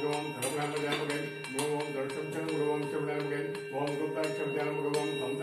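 Brass temple hand bell rung rapidly and continuously during aarti, its high ringing strokes over steady droning devotional music.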